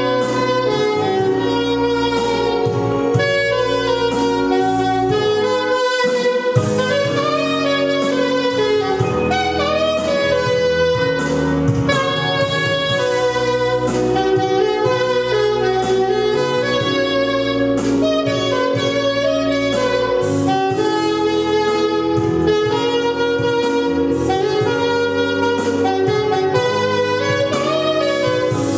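Jazz saxophone playing a melody over an accompaniment with a steady bass line.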